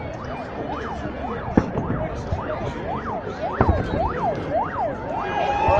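Car alarm siren wailing, its pitch sweeping up and down about twice a second, with a few sharp fireworks bangs over it.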